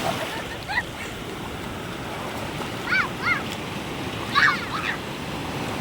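Sea surf washing steadily onto a beach, a continuous rushing noise, with a few short high-pitched voice calls about three seconds in and again a little later.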